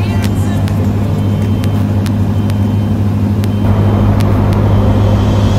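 Cessna 152's four-cylinder Lycoming O-235 engine and propeller droning steadily in cruise flight. About three and a half seconds in, the sound shifts to a fuller, hissier cabin drone with more air noise.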